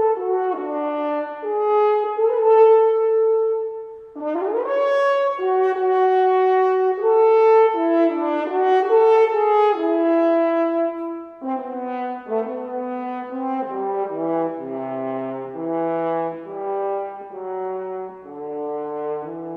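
Unaccompanied French horn playing a solo melody, one note at a time, with a quick upward slide about four seconds in and a stretch of lower notes from about halfway through.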